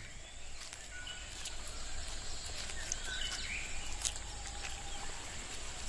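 Forest ambience: a steady high insect hum with a few short, scattered bird chirps and faint clicks.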